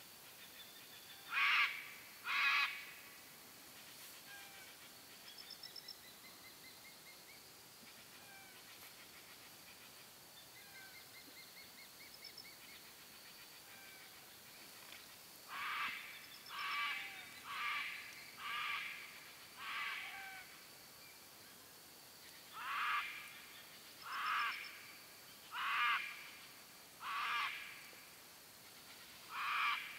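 Sulphur-crested cockatoo screeching: loud, harsh calls, two near the start, then after a long pause a run of about ten, roughly one every second or so. A faint steady high whine and a few faint quick chirping trills run underneath.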